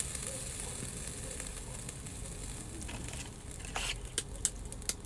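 Spatula stirring thick tomato soup in an enameled cast-iron pot, with a steady hissing scrape. A few sharp clicks follow near the end.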